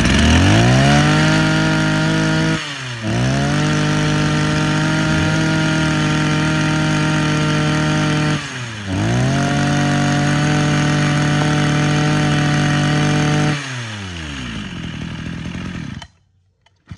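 Mitsubishi TL26 26cc two-stroke brush cutter engine being revved. It climbs to full throttle and holds there three times, dipping briefly between runs, then falls back to idle and cuts off suddenly near the end.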